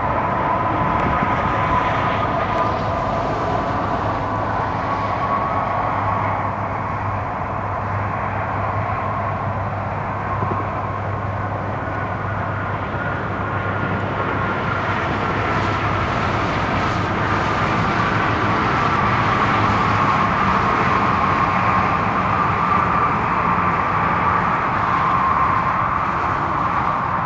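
Steady roadside traffic noise, a continuous rumble and hiss with a faint drifting whine and a low engine hum under it.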